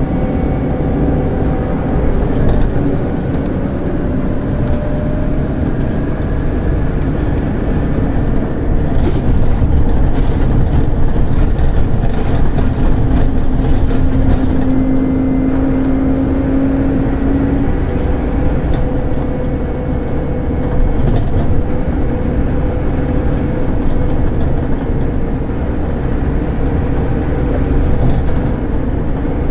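Scania K280UD bus's Scania DC9 five-cylinder diesel heard from inside the passenger cabin, working hard under full throttle on an uphill climb. The engine note wavers and glides slowly.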